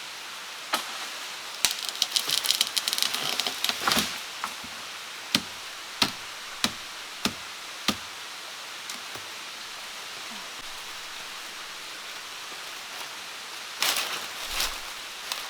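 Chopping by hand: a run of sharp knocks, with a brief clatter of small clicks between the first few, the strokes spreading out to about one every half second or so before stopping. A steady soft hiss underlies it, and there is a short rustle near the end.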